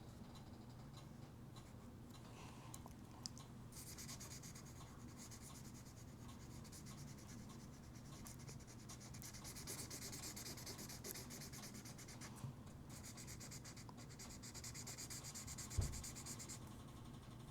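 Faint, rapid back-and-forth scribbling of a coloring tool on paper, filling in a large area. It starts about four seconds in and stops shortly before the end, with a soft bump just before it stops.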